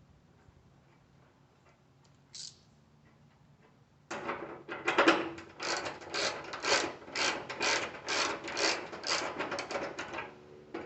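Hand ratchet with a 10mm socket clicking rapidly as it drives a fender bolt home, in quick back-and-forth swings about twice a second; it starts about four seconds in and stops shortly before the end.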